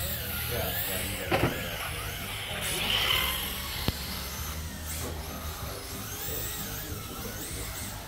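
Electric RC drift cars' motors whining, the pitch rising and falling as they speed up and slow down through the corners, with a couple of sharp clicks, one about a second in and one about four seconds in.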